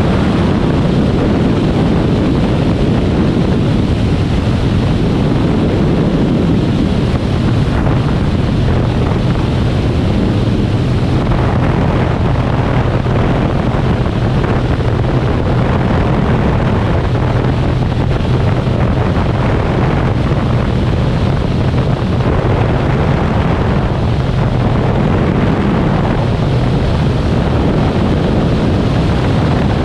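Cessna A185F's six-cylinder Continental engine and propeller running steadily in flight, a constant low drone under heavy wind rush on the wing-mounted camera's microphone.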